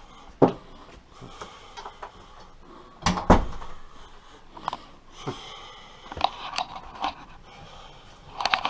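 Scattered knocks and clunks of things being handled, the loudest a double knock about three seconds in, with smaller clicks through the rest.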